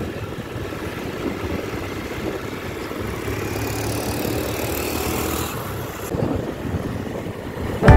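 Road noise from a moving vehicle: a steady noisy hiss over a low engine hum. The hiss thins out about six seconds in.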